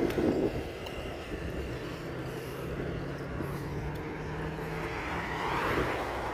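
A passing motor vehicle: a steady low engine hum, with road noise swelling up near the end as it goes by.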